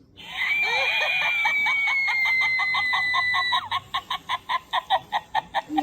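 Chucky Sidestepper animatronic doll playing its built-in sound effects through its small speaker. First comes a long held, slightly falling sound, then about halfway through it changes to rapid rhythmic pulses, about four or five a second.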